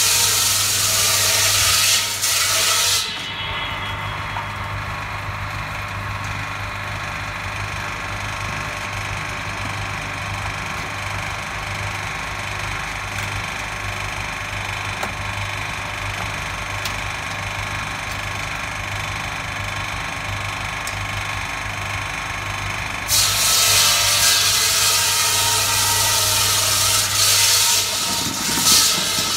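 Eight-blade electric ice-block saw running with a steady hum from its 1.5 hp motor. Its saw blades cut loudly through a block of ice for about the first three seconds, then spin free, and bite into a fresh block again for the last six seconds or so.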